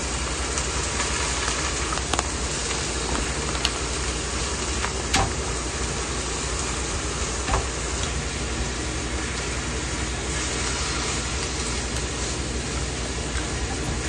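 Steady hissing noise over a low hum, broken by a few faint clicks.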